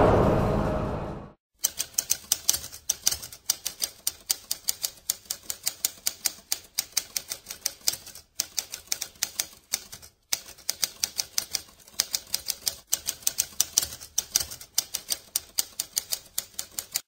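Typewriter keys clacking in a quick run of keystrokes, several a second, with a few short pauses. A louder sound fades out in the first second, before the typing begins.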